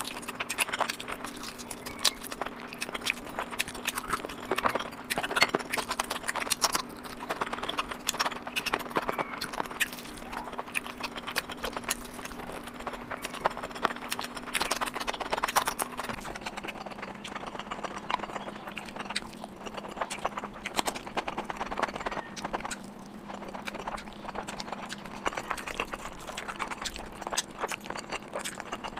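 Close-miked eating sounds: dense, wet chewing and mouth clicks and smacks, with a low steady hum behind them.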